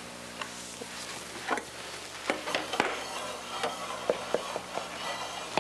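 Knife clicking and scraping against a glass pie plate as a baked apple pie pancake is cut into pieces: a run of light, sharp clicks, irregularly spaced, over a low steady hum.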